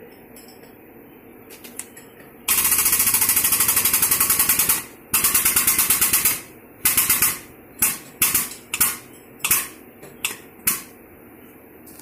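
Hydraulic shop press's pump running in rapid, even pulses as the press ram bends a quarter-inch steel plate over a V-channel. It starts about two and a half seconds in, runs in two long stretches, then in a string of short bursts that stop near the end.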